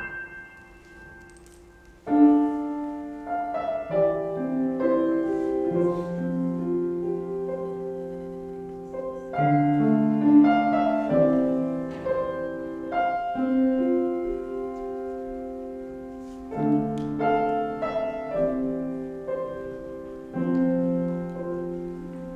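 Solo piano playing slow, quiet chords, each struck and left to die away, after a short pause about two seconds in.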